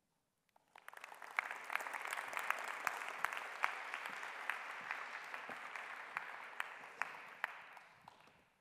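Audience applauding at the end of a talk: the clapping starts about a second in, holds steady, and dies away near the end.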